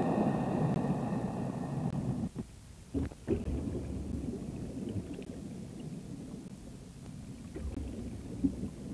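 Ship's anchor and chain being let go to the seabed: a heavy low rumble that cuts off about two seconds in, then a few dull knocks and a fainter low rumble.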